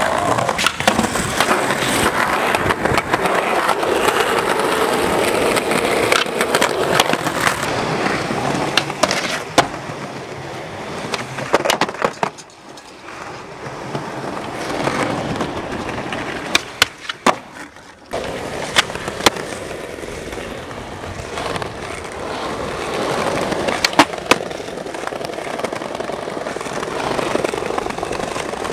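Skateboard wheels rolling over paving, with repeated sharp clacks of the board being popped and landed on tricks.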